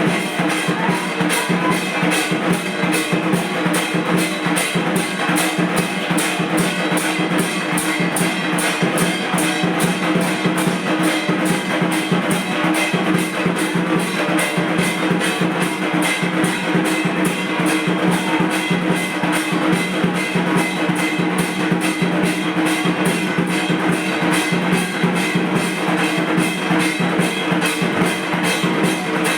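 Dhak, the Bengali barrel drum, beaten in a fast, steady, unbroken rhythm of about four strokes a second, the drumming that accompanies a Durga Puja aarti.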